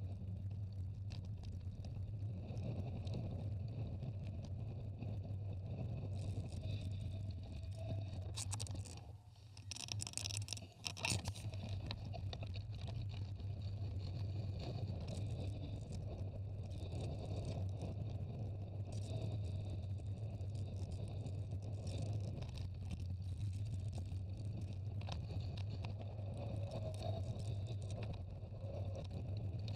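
Steady rumble and rattle of a moving bicycle heard from a camera riding on it: tyres rolling along a dirt and paved path, with wind on the microphone. Just before ten seconds in it dips briefly, then a few sharp rattles follow.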